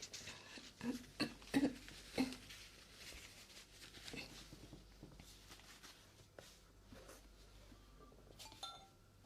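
Scissors snipping close to the microphone in an ASMR haircut roleplay. There is a quick run of about five sharp metallic snips one to two seconds in, then a few fainter clicks.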